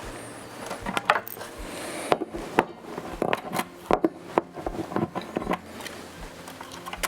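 Irregular clicks and taps of small hard parts and tools being handled while restringing an acoustic guitar, with faint backing music underneath.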